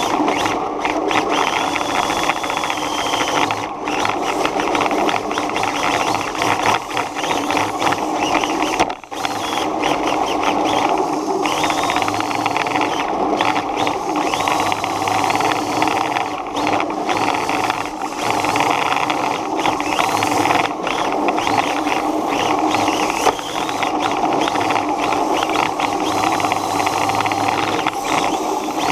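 A small vehicle driving on pavement: the steady whir and rattle of its motor and drivetrain, with high whines that rise in pitch several times as it speeds up.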